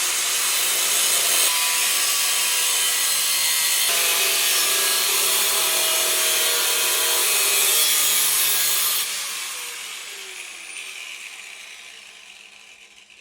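Handheld power tool cutting and grinding into a door panel to enlarge a hole, a loud rasping whine whose pitch shifts a couple of times under load. About nine seconds in it is switched off and spins down with a falling whine that fades away.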